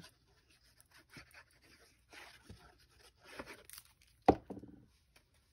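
Paper rustling and short scratchy strokes of a handheld adhesive applicator drawn along the back of a cardstock panel, with one sharp knock about four seconds in as the panel is handled.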